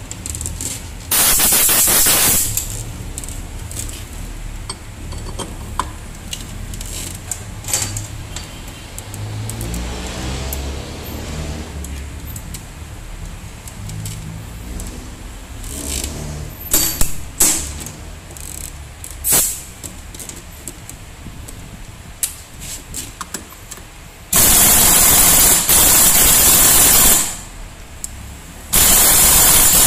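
Pneumatic impact wrench run on the nut of a scooter's CVT rear clutch pulley: one short burst about a second in, then two loud bursts of about three seconds each near the end. In between, scattered clicks and knocks of tools on metal.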